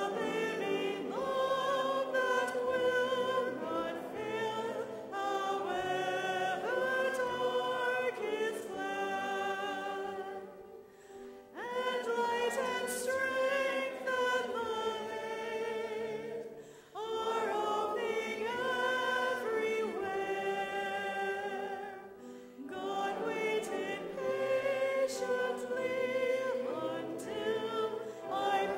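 A church congregation singing a hymn together, in long sustained phrases with short breaks for breath between them.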